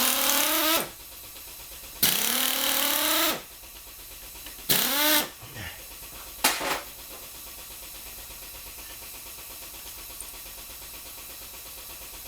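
Pneumatic screwdriver bit spinning out the engine-case screws in four short bursts. Each burst winds up in pitch with a hiss of exhaust air, the second one the longest.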